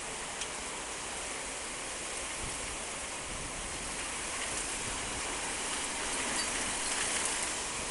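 Heavy rain pouring steadily during a windstorm: a dense, even hiss with scattered faint drop ticks.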